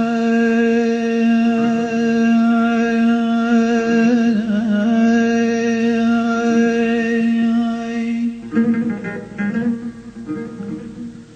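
Song music: one note held at a steady pitch for about eight seconds, then a run of shorter plucked-string notes that fade away near the end.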